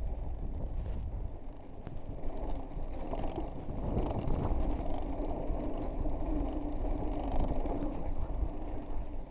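Mountain bike rolling fast over bare sandstone, heard from the rider: a steady rumble of tyres on rock with wind rushing on the microphone. A steady hum rises out of it from about four seconds in until near the end.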